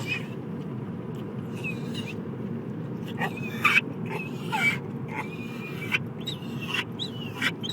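Staffordshire Bull Terrier making a strange, squeaky, creaky-door-like noise: a string of short, high, wavering whines, some sliding up or down. Steady road noise from the moving car runs underneath.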